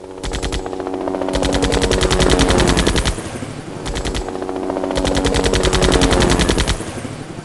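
Sound effect of machine-gun fire: four bursts of rapid automatic fire, two short and two long, with sustained tones beneath and a fading tail after the last burst.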